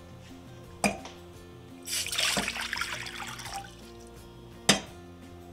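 Water poured from a glass measuring cup into a stainless steel saucepan, splashing for about a second and a half midway. A sharp knock comes early, and a louder knock comes near the end.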